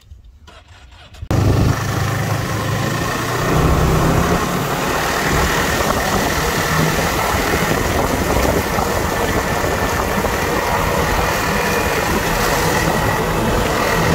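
Snowmobile engine running steadily as the machine is ridden over snow, coming in suddenly about a second in.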